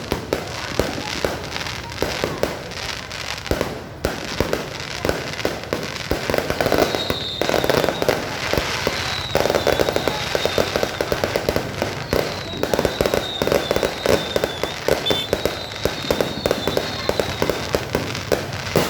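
Fireworks going off in a continuous dense barrage of overlapping bangs and crackles. A thin, high, wavering tone runs through the second half.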